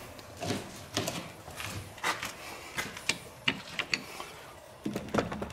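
Irregular clicks and knocks of an old wooden door's iron fittings being handled.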